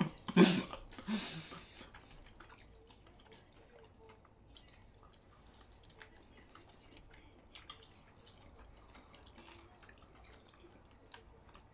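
Faint, irregular wet clicks and mouth smacks of people eating sauced chicken wings with their fingers, after a short breathy vocal sound at the start.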